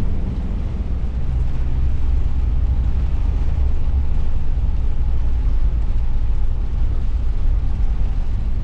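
Steady, loud low rumble with no break.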